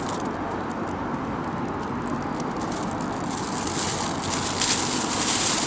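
Thin plastic carrier bag crinkling and rustling as a stingray is pushed into it. It starts about three seconds in and grows louder, over a steady background noise.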